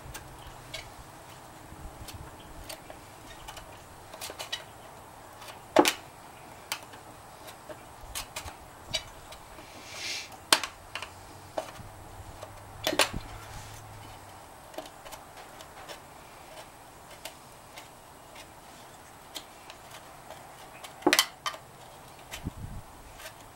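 Irregular light metal clicks and scrapes of a small tool prying the crimped lip off a VW Beetle speedometer's metal housing, with a few sharper clicks and a short scrape about ten seconds in.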